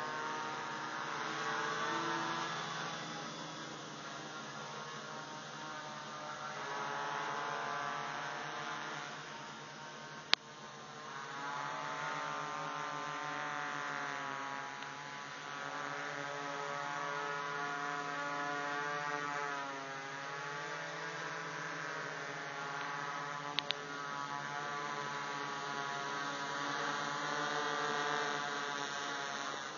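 Quadcopter's four A2212 1000KV brushless motors and 10x4.5 propellers running in flight: a steady hum whose pitch drifts up and down as the motor speeds change. A sharp click about ten seconds in.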